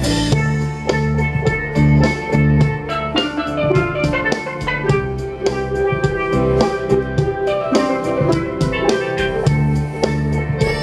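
A steel pan band playing a tune: many pans struck with mallets in quick, even strokes over sustained low notes.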